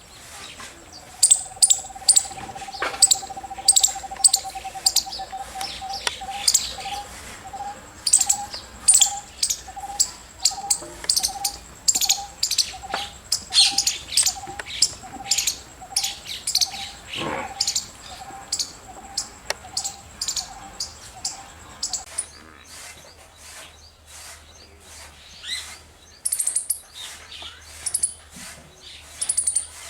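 Squirrel giving a long series of short, sharp, high-pitched chirps, a few a second, in uneven runs. For most of the first twenty seconds a lower, regular pulsing call repeats about twice a second beneath them.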